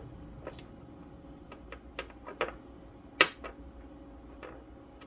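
Small petrified-wood pebbles clicking and knocking on a tabletop as they are handled and set down: a scattering of light taps, with one sharper knock about three seconds in.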